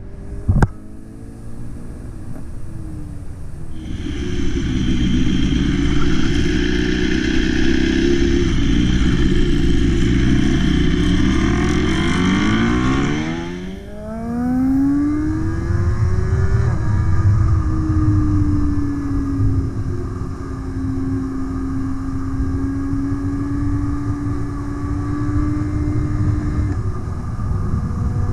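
Motorcycle engine heard from the riding bike, pulling through the gears with heavy wind rush from about four to thirteen seconds in. The engine note sweeps and dips around fourteen seconds, then settles into a steady hum at an even speed. There is a sharp click right at the start.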